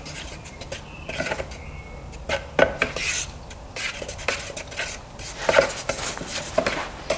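Wooden paint stirrer stirring paint and thinner in a plastic mixing bucket, scraping and knocking irregularly against the sides and bottom.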